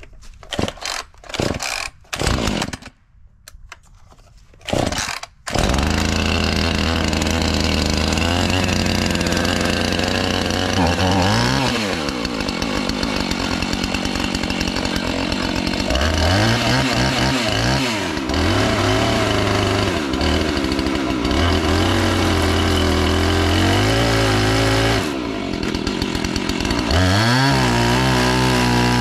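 Chainsaw in a chainsaw mill: a few short bursts, then the engine catches about five and a half seconds in and runs at high revs while ripping lengthwise through a log. Its pitch dips and recovers several times as the bar takes load in the cut.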